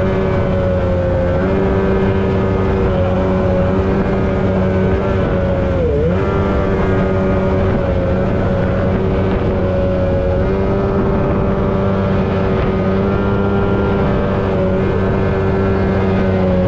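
Two-stroke engine of a mini Superjet jet boat running steadily under way, with a brief dip in revs about six seconds in.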